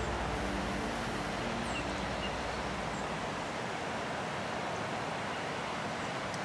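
Steady outdoor rushing noise, with a few faint high chirps. The tail of background music dies away about a second in.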